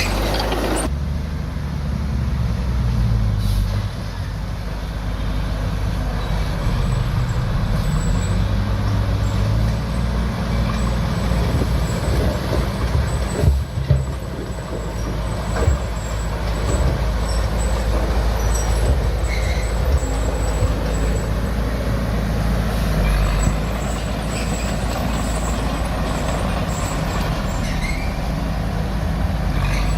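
Diesel engine of heavy earthmoving machinery running steadily under work, with a single clunk about halfway through.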